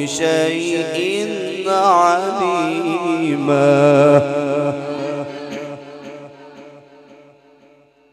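Male qari's melodic Quran recitation: one long ornamented phrase with wavering pitch that stops about four seconds in. Its heavy echo then dies away over the next few seconds.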